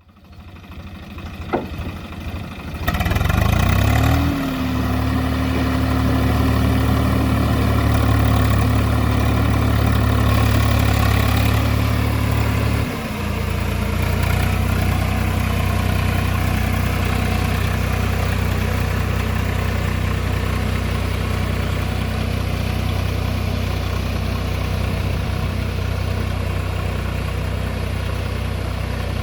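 Tractor engine running under a rotavator: about three seconds in it speeds up with a rising note and holds a steady higher speed, then drops to a lower steady run at about thirteen seconds.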